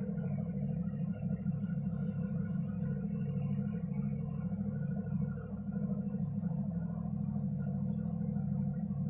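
Many people shouting in the distance, merged into a continuous low rumble with no single voice standing out.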